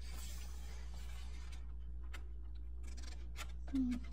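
Glossy photo book pages being handled and turned: a soft paper rustle, then several light clicks and taps, over a steady low electrical hum. A brief murmur of voice comes near the end.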